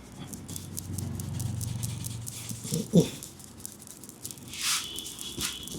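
Hands massaging the head and neck: rubbing, with many light taps and clicks. About three seconds in comes one short, sharp call, the loudest sound.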